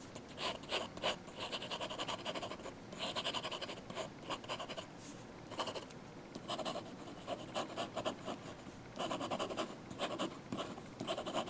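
Amazon Basics fountain pen nib scratching over sketchbook paper in quick, short drawing strokes with brief pauses; the nib is a bit scratchy.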